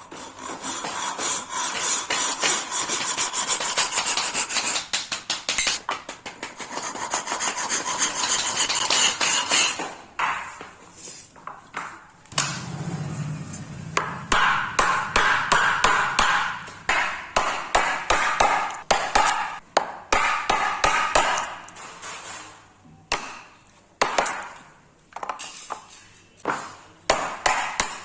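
Hand tool working wood: long runs of rapid scraping strokes, then, in the last few seconds, a series of separate knocks about every half second to second.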